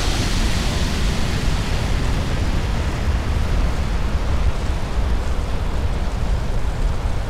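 Shuttlecraft engine sound effect: a steady, deep rumble with a hiss over it, the hiss easing over the first second.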